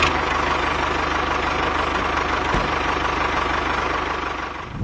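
Tractor engine running steadily with a fine, even low pulse, fading slightly near the end.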